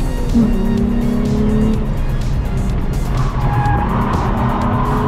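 Nissan 350Z's 3.5-litre V6 held at high revs through a drift, heard inside the cabin, with tyre squeal. The engine note holds steady for about a second early on, wavers in the middle, and steadies again near the end.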